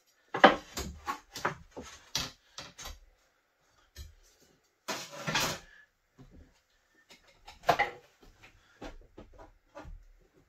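Irregular knocks and clatters of wooden window trim and hand tools being handled and tapped while the jamb is fitted and checked for square. There is a sharp knock about half a second in, a short scraping sound around five seconds, and another sharp knock near eight seconds.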